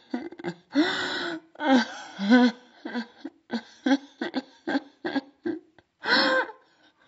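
A young woman laughing hard into the phone in many short bursts, broken by loud gasping breaths, the longest gasps about a second in, about two seconds in and near the end.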